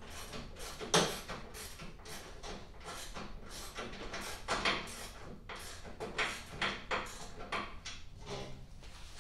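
Irregular clicks and rattles of a socket wrench being worked on the long bolts of a snowblower's handlebars, with one sharper knock about a second in.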